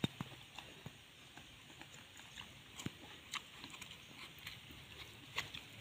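Faint, scattered clicks and taps over a quiet, steady hiss, the sharpest one right at the start.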